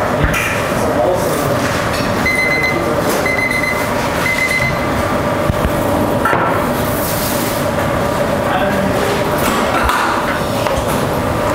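Steady hum and bustle of a restaurant kitchen, with background voices and small clinks of utensils; a couple of seconds in, three short high beeps about a second apart.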